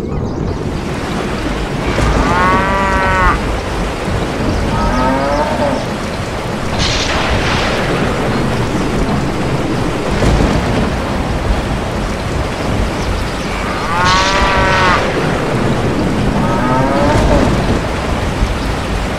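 Cows mooing: a pair of calls, the second shorter and falling, about two seconds in, and the same pair again near the end, over a steady hiss of heavy rain. A thunderclap comes about seven seconds in.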